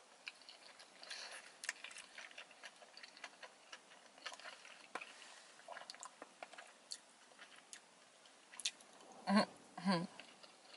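Close-up sounds of sushi being chewed with the mouth closed: faint, scattered wet clicks and crackles. Near the end come two short hums.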